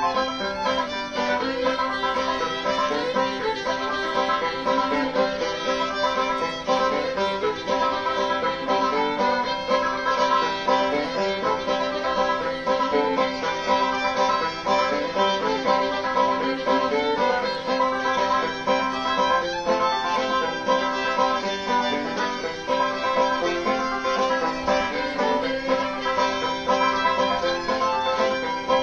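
Background music: an upbeat string-band tune with banjo and fiddle, playing continuously.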